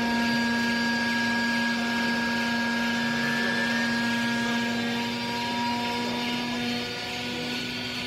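Hydraulic power unit of a vertical rag baler running under load through a pressing stroke: a steady motor-and-pump hum with a strong held tone and fainter higher whines. The main tone stops about seven seconds in.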